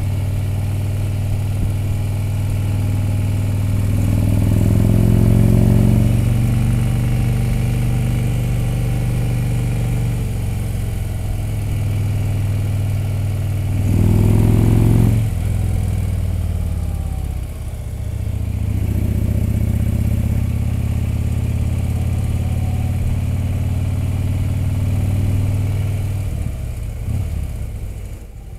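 Touring motorcycle's engine running under way, heard from the rider's seat. The engine note rises as it accelerates, about four seconds in and again around fourteen seconds, eases off briefly a few seconds later, then runs steadily.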